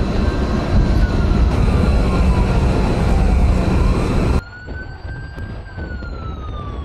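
A wailing siren that slowly rises and falls in pitch, twice, over a loud low rumble; the rumble drops away abruptly about four seconds in while the siren carries on.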